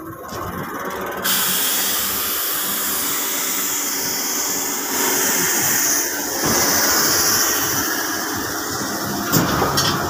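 Tadano ATF 160 mobile crane running, heard up close: a loud steady rushing hiss over an engine rumble that comes in suddenly about a second in, with a few sharp knocks near the end.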